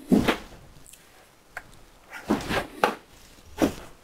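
Handful of short, irregular knocks and thumps, the loudest right at the start and a cluster of them near the end.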